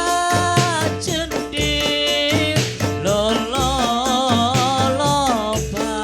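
Music: a voice singing a melody with held, gliding notes over a steady low drum beat.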